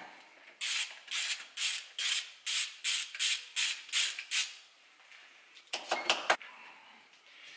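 Ratchet spanner undoing the nuts on a Lambretta engine's magneto housing: about a dozen quick ratcheting strokes, a little under three a second. Then a few light metallic clicks as the loosened nuts and washers are handled.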